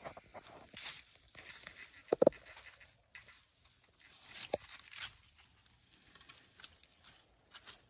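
Melanistic Asian water monitors feeding on raw chicken gizzards and livers from a plastic tray: irregular wet clicks, smacks and scrapes as they bite at the meat and shift their feet on the tray. The loudest sounds are a couple of sharp snaps about two seconds in.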